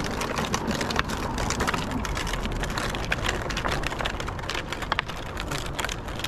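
Hand-pushed fishing cart with a bucket rolling over pavement: its wheels and metal frame rattle in a steady run of crackling clicks.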